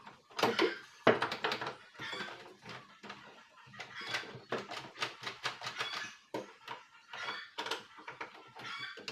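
A stiff, rusted doorknob lockset being worked and pushed into a door: an irregular run of metal clicks, knocks and scrapes, with a quick burst of clicks about halfway through.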